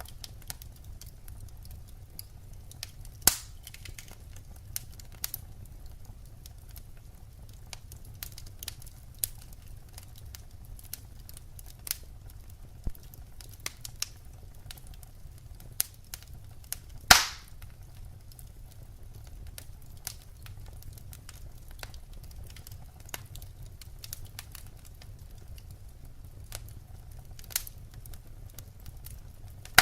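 Wood fire crackling, with irregular small snaps and two loud pops, about three seconds in and just past halfway, over a low steady rumble.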